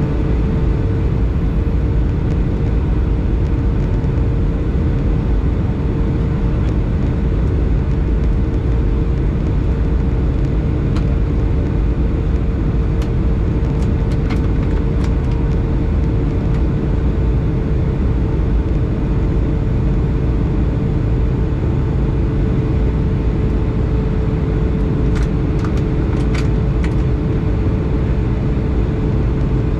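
Steady cabin noise inside a Boeing 757 in flight: a deep rumble of engines and airflow with a steady hum running through it. A few faint clicks come about halfway through and again near the end.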